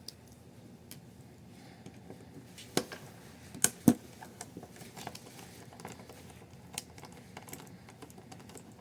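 Allen key working a rear body screw out of an airsoft rifle, with light scattered clicks and taps of the tool and small parts. There are three sharper knocks of hard parts knocking together, about three to four seconds in.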